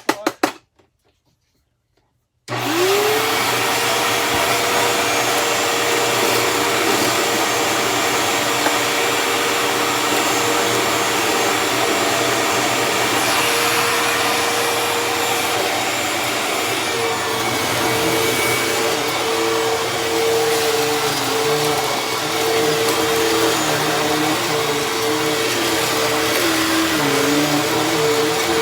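Hoover Tempo bagless upright vacuum cleaner switched on about two and a half seconds in, its motor whine rising quickly to a steady pitch and then running continuously while it sucks up confetti. In the second half the pitch wavers up and down as the load changes.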